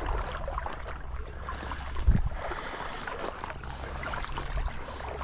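Water sloshing and swishing as a person wades through shallow marsh water, with a dull thump about two seconds in.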